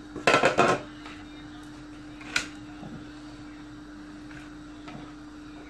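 Handfuls of couscous grains dropped into an aluminium couscoussier steamer basket, a short rattling patter of grains on metal about a quarter second in, then a single click and a few faint ticks. A steady low hum runs underneath.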